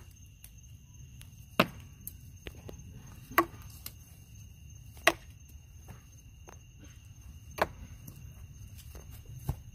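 Five sharp snaps of shots, about two seconds apart, with a faint steady high whine underneath.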